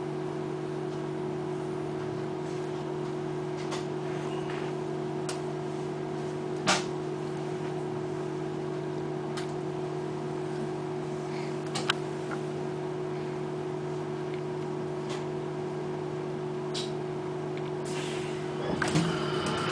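Steady electric hum of a trolleybus standing at a stop, heard from inside, with a few sharp clicks scattered through it. A louder rumble with knocks sets in near the end.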